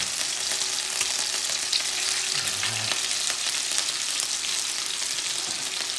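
An egg frying in hot oil in a frying pan beside pieces of chicken adobo: a steady sizzle with many small crackles.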